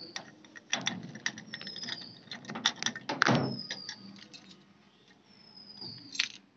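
A string of sharp clicks and knocks from objects being handled, the loudest about a second in and about three seconds in, dying down in the second half. A thin, high falling whistle, most likely a bird outside, repeats every couple of seconds.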